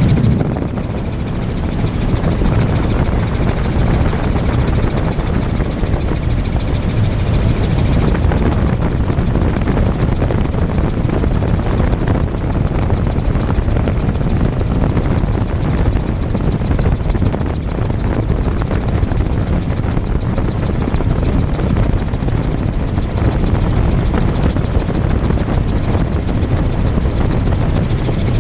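Helicopter rotor and turbine noise heard from inside the cabin in flight: a loud, steady, low, thudding drone.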